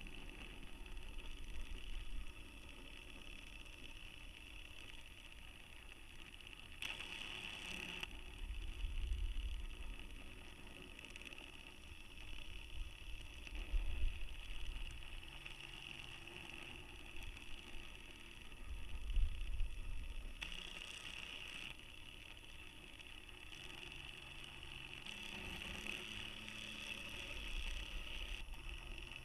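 Steady high whine of the small DC motor that counter-rotates the camera inside a high-altitude balloon payload. It swells several times as the motor works harder, with muffled low rumbles in between.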